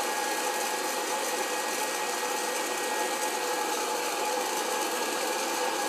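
Hot-air popcorn popper running, its fan and heater blowing with a steady, even whoosh and a faint motor whine.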